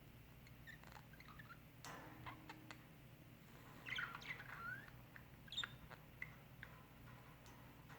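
Budgerigars chirping faintly: scattered short chirps and quick up-and-down warbles, busiest about halfway through, with a few small clicks between them.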